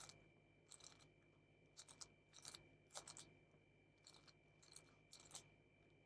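Layers of a 7x7 plastic speed cube being turned by hand: a string of short, faint plastic clicks and clacks at an uneven pace of one or two a second as slices and faces are moved.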